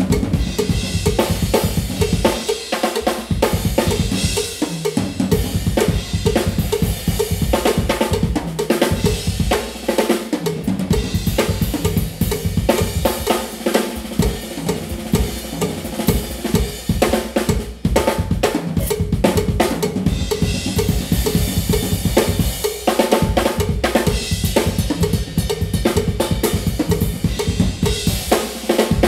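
Live drum kit solo: fast, continuous strokes on the drums and cymbals, with two stretches of heavier cymbal wash, about a fifth of the way in and again about two-thirds through.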